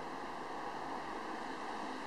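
Steady, even rushing noise like a hiss, with no distinct sounds in it.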